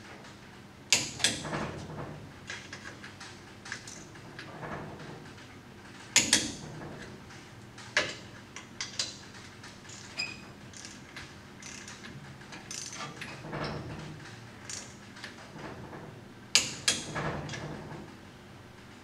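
Click-type torque wrench set to 35 foot-pounds being worked on the bolts at a truck's rear axle end: ratchet clicking, with three loud sharp clicks about a second, six seconds and seventeen seconds in as the wrench breaks over at the set torque.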